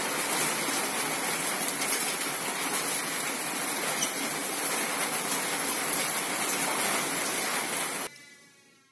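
A steady, even hiss that cuts off abruptly about eight seconds in and fades away just before the end.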